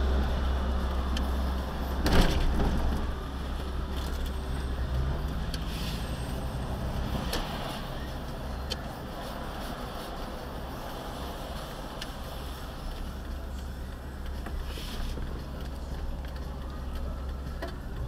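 Road noise and low engine rumble inside a moving vehicle's cabin, with a loud knock about two seconds in and small rattles and clicks scattered through.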